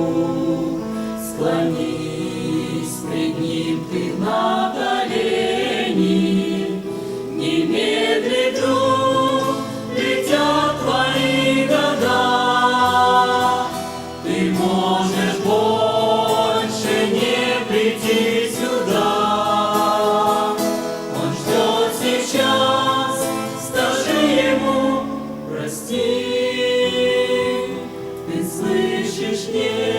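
Choir singing a Christian song in Russian.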